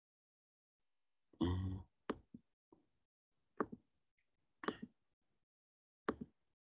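A short low hum about a second in, then a string of about six soft, separate clicks and knocks spread over the next few seconds.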